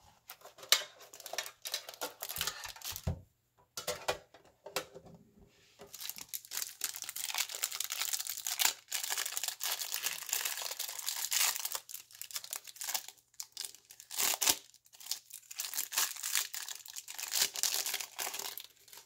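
A few clicks and knocks as a metal baseball card tin is handled and opened. Then, from about six seconds in, the plastic cellophane wrapper of a pack of baseball cards crinkles and tears almost without pause while the pack is opened.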